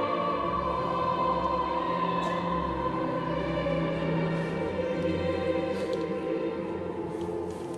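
Choral sacred music inside a large church: voices singing long held chords over steady low bass notes.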